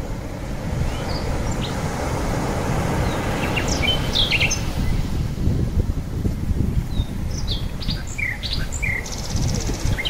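Birds chirping over a steady low rushing noise, with short high chirps coming every second or so.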